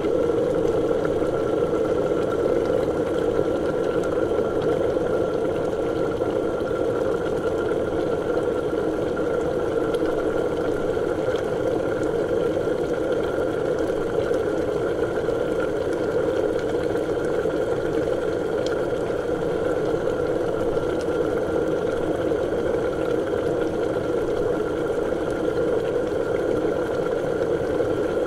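Liquid bubbling steadily and without pause, a dense, rapid churn of bubbles.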